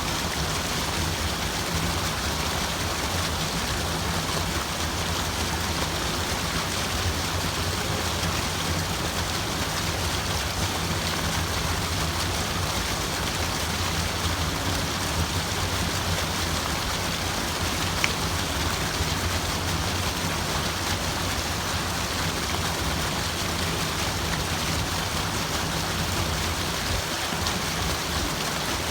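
Steady rushing of running water, an even continuous wash, with a single brief click a little past the middle.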